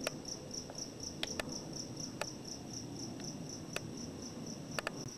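Cricket chirping in a steady high-pitched rhythm, about four chirps a second, with a few sharp clicks scattered through.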